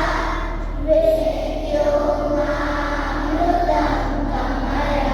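A group of schoolchildren singing together in long held notes.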